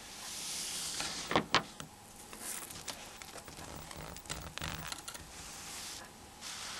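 Small clicks and light scraping of hand tools on a mobile phone's small plastic and metal parts during disassembly, over a steady hiss, with two sharper clicks about a second and a half in.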